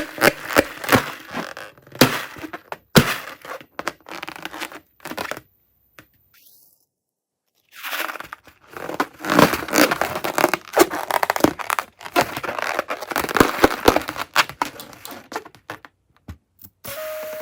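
Hands pressing and stretching sticky glossy slime, a dense run of wet crackles and small pops, with a pause of about two seconds in the middle. Near the end a steady pitched tone begins.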